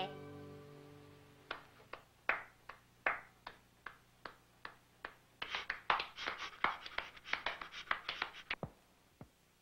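The last note of a song dies away, then a run of short, sharp taps, each with a brief ring. They come a few at a time at first, then in a quick run for about three seconds before stopping.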